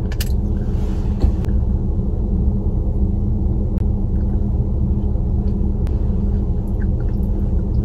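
Steady low rumble of a car's idling engine, heard from inside the cabin of the parked car.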